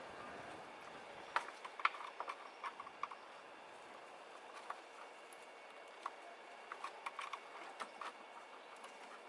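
Faint, irregular clicks and light taps of tools and parts being handled on the engine's top end, in small clusters about a second or two in and again past the middle.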